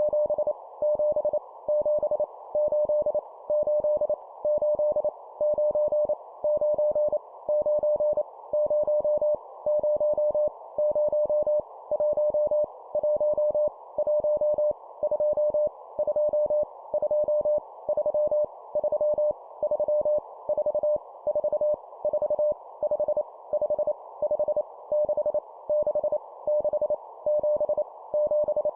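Morse code numbers sent at 25 words per minute as a single keyed beep, each number repeated three times, over a constant background hiss.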